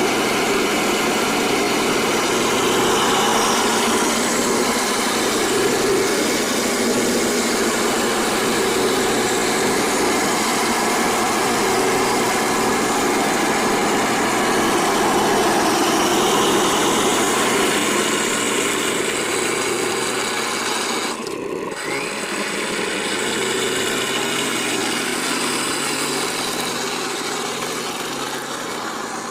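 1/16 MATO all-metal Tiger I RC tank running, a steady engine-like drone from the model with a brief break about two-thirds of the way through, and slightly fading near the end.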